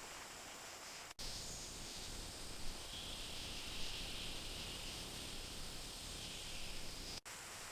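Rainforest ambience: a steady hiss of background noise with a high, even insect drone over most of it. The sound drops out twice for an instant, about a second in and near the end, where it cuts from one recording to another.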